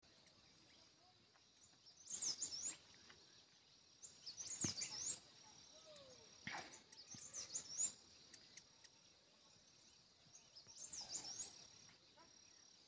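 A small songbird singing in short phrases of quick, high chirping notes, four phrases a few seconds apart, over a faint steady high-pitched hum.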